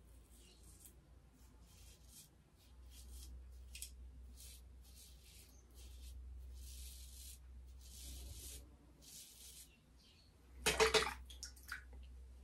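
Double-edge safety razor with an ASCO blade scraping through lathered beard stubble on the neck: about ten short strokes in a row. About eleven seconds in comes a brief, much louder rush of noise, the loudest sound here.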